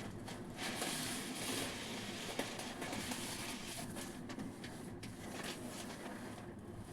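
Rustling and handling of packaging during an unboxing, with scattered small clicks and one sharper click about two and a half seconds in.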